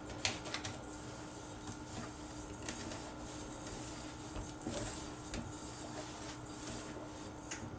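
Crumble topping being mixed by hand in a bowl: faint irregular scraping and tapping as cold butter is worked into flour, over a faint steady hum.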